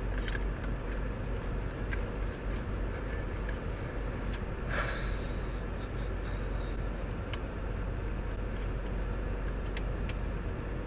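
Steady low hum of a car running, heard from inside the cabin, with a short rushing hiss about halfway through.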